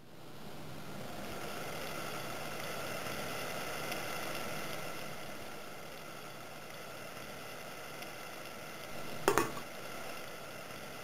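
Steady hiss of water heating toward the boil in a stainless steel pot. About nine seconds in, the stainless lid is set on the pot with a quick double clank of metal on metal.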